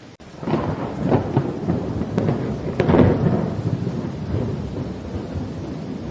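Thunder over steady rain: a crackling clap breaks about half a second in, cracks again around three seconds, then rolls off into a fading rumble.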